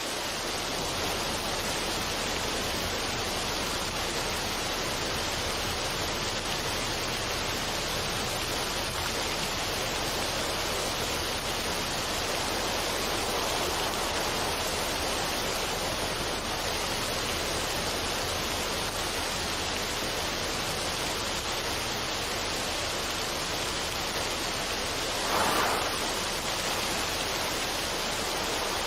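Steady, even rushing noise with no melody or beat, a relaxation noise track; it swells briefly near the end.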